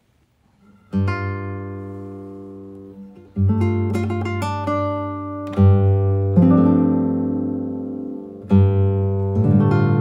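Music: slow strummed chords on an acoustic guitar, beginning about a second in, each chord left to ring and fade before the next is struck.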